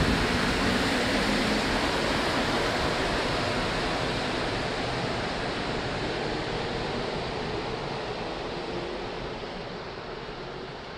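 Rubber-tyred Montreal Metro train pulling away into the tunnel: a steady rushing rumble that slowly fades as it goes.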